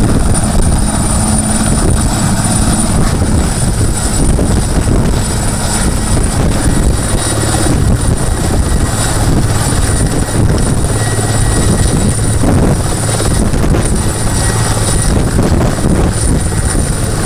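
Large military transport helicopter hovering low: steady, loud rotor noise with a thin high turbine whine over it.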